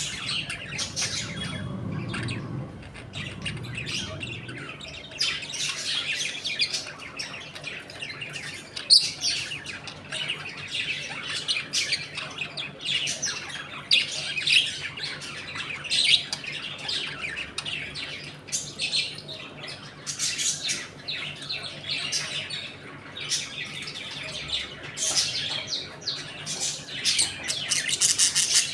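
A flock of budgerigars chattering, with many overlapping chirps and squawks.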